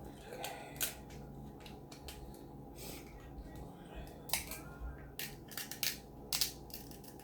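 Cooked shellfish shell being cracked and picked apart by hand to get at the meat: a scattering of sharp cracks and clicks, the loudest a little past the middle and near the end.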